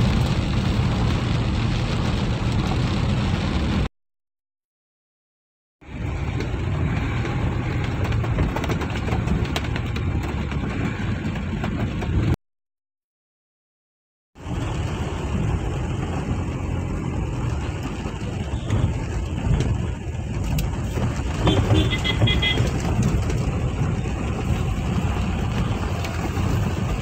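Inside a vehicle driving through heavy rain: a steady rush of engine, tyres on the wet road and rain on the windshield. It cuts out completely twice for about two seconds, about four seconds in and again about twelve seconds in, and a brief high-pitched beeping sounds about three-quarters of the way through.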